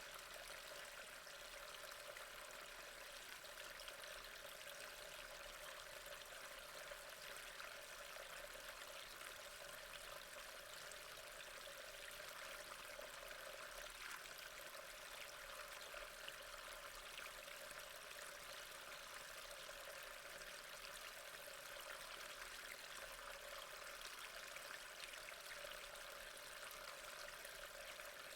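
Steady rain falling: an even, faint hiss with a few separate drop ticks now and then.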